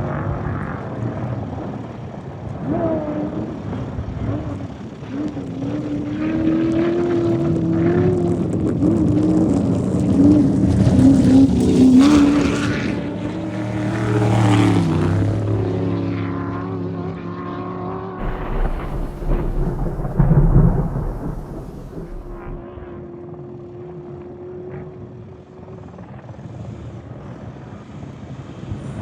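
Off-road race vehicle engines revving and passing by, with the pitch shifting as they go. They are loudest about ten to fifteen seconds in, then drop away to a lower rumble and fainter engine sound.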